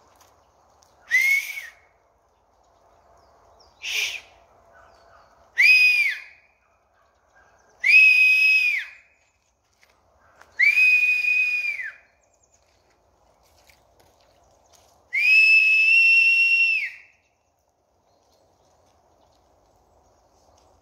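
Six loud, steady-pitched whistle blasts, the later ones longer, the last held for about two seconds: a man whistling to call dogs to be fed.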